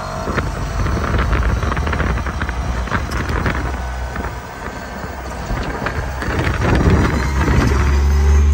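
Wind buffeting the microphone over a steady low rumble with scattered knocks and rattles, as heard riding a 2014 Zero DS electric motorcycle on knobby tyres. The rumble grows louder near the end.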